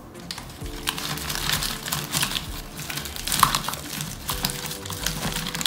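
Paper tissue and plastic packaging crumpling and crinkling as they are pushed by hand into the funnel lid of a plastic sharps bin, with one sharper click about three and a half seconds in.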